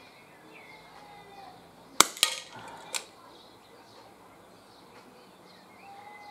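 A single shot from a CO2-powered Smith & Wesson M&P R8 air revolver about two seconds in, a sharp crack. About a quarter second later the pellet hits a tin can downrange with a ringing clank, and there is a lighter clatter about a second after the shot as the can is knocked over. Faint birdsong runs in the background.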